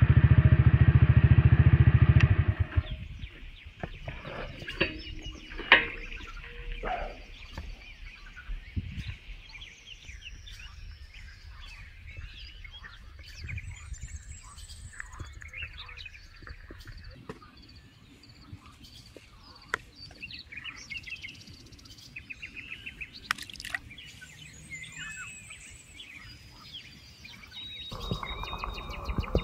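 A motorcycle engine running, cut off about two and a half seconds in. Then songbirds chirping and singing, with scattered small clicks and one sharp click about six seconds in. A louder steady noise starts near the end.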